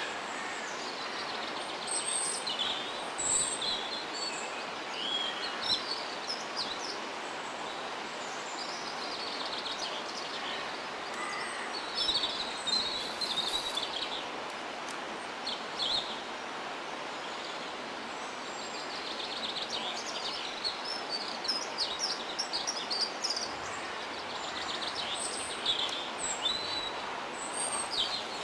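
Small songbirds chirping, with many short high calls and brief song phrases scattered over a steady background hiss.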